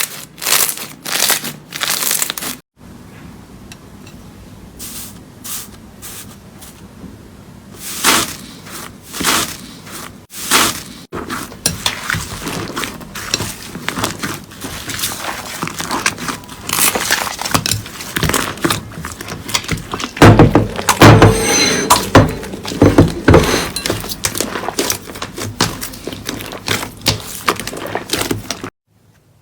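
Slime being pressed and squeezed by hand, giving crisp crackling and crunching pops, a few separate crunches at first, then a dense run of crackling. It stops suddenly near the end.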